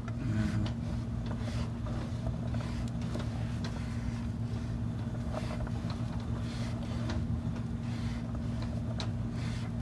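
Steady low machine hum with two constant low tones, with faint scattered clicks and rustles over it.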